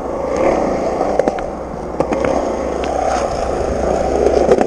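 Skateboard wheels rolling over skatepark concrete: a steady rumble with a few faint clicks.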